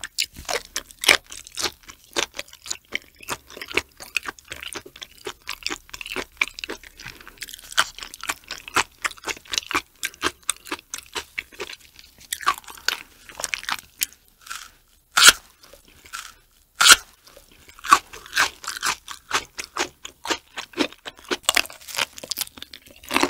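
Close-miked chewing of raw shrimp with flying fish roe: a dense, fast run of small wet clicks and crunches as the roe pops between the teeth. Two sharper, louder crunches come a little past the middle.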